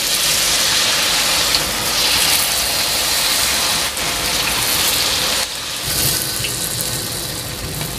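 Corn fritter batter deep-frying in hot oil in a wok: a loud, steady sizzle as spoonfuls of batter go into the oil. It drops a little about five and a half seconds in.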